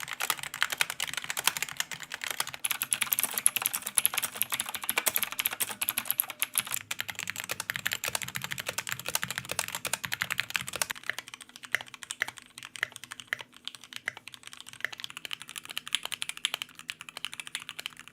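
Fast, continuous typing on a mechanical keyboard, a dense stream of key clicks and clacks. About eleven seconds in the typing turns softer and more spaced out.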